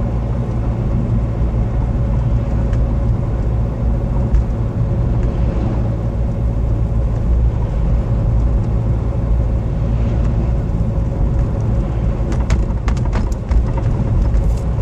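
Renault Mégane II running with a steady low rumble and a thin, steady whine held through it, the strange noise that the owner is showing. A few sharp clicks come near the end.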